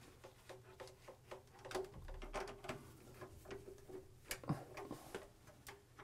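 Faint, irregular small clicks and ticks of a screwdriver and wire ends being worked against the terminal screws of an electric water heater's heating element and thermostat as the wires are reconnected. The sharpest click comes about four seconds in.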